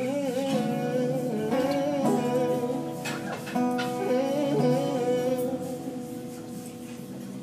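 Guitar played as a song intro, held notes ringing under a man's wordless singing that slides up and down in vocal runs.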